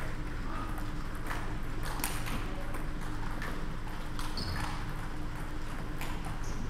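Table tennis ball clicking off the bats and bouncing on the table during a rally: short sharp clicks at uneven intervals.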